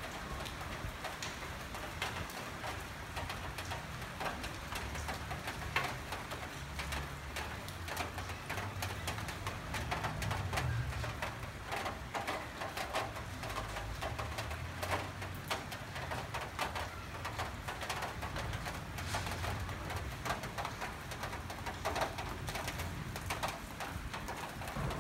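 Rain dripping and pattering on corrugated metal roofs and wet concrete, a dense scatter of small ticks, with a bird calling.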